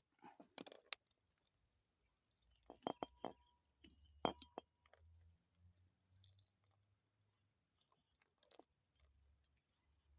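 Scattered clicks and knocks from handling parts and tools, loudest about four seconds in, over near silence.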